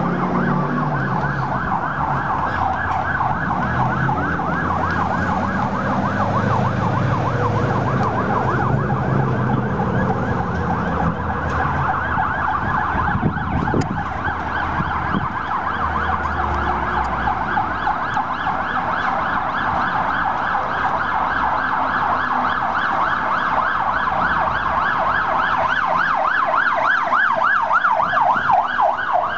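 Fire truck siren sounding in a fast yelp, its pitch rising and falling several times a second, most distinct in the second half. A low engine rumble runs under it for the first half.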